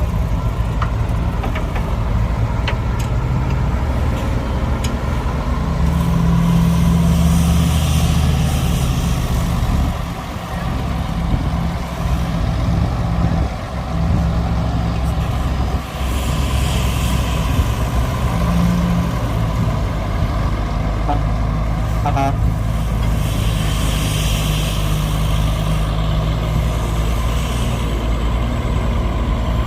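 Heavy diesel construction machinery running steadily, with a low engine note throughout and a few patches of hiss about 7, 17 and 24 seconds in.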